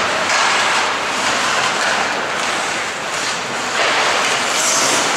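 Ice hockey game sound in an arena: a steady rush of noise from skates carving and scraping the ice, swelling and easing every second or so.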